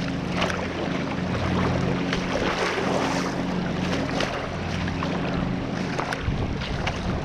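Small boat motor running steadily, a low hum over the rush of water and wind.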